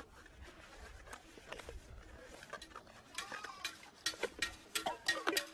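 Metal pots and bowls clinking and scraping against each other as they are washed by hand in a plastic basin of water, the clinks growing louder and quicker near the end.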